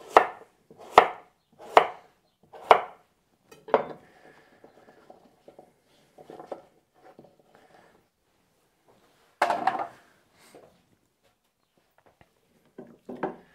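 Chef's knife chopping sweet potato into chunks on a wooden cutting board: five sharp chops about a second apart. Then softer sounds of the pieces being handled, with one louder scrape or knock about nine and a half seconds in.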